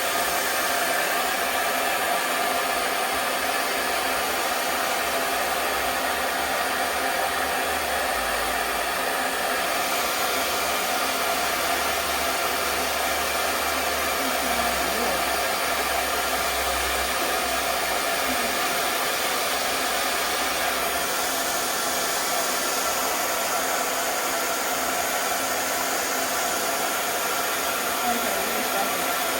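Handheld hair dryer running steadily, blowing on glue gel laid along the wig's front edges to set it.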